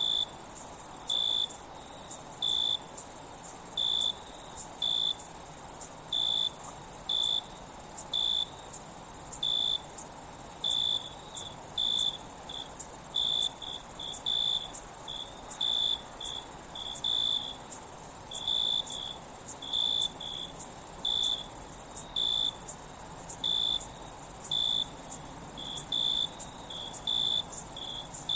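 Night insect chorus: a steady high-pitched trill with crickets chirping over it in short pulses, about one to two chirps a second.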